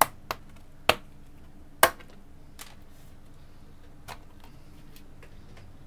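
Sharp clicks and snaps as the aluminium bottom case of a MacBook A2141 is pried up and lifted off by hand. There are four loud clicks in the first two seconds, then two fainter ones.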